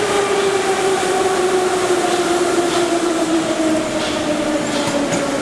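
Moscow Metro train pulling into the station, its electric traction motors giving a whine that falls steadily in pitch as the train slows, over a rushing rumble of wheels and air.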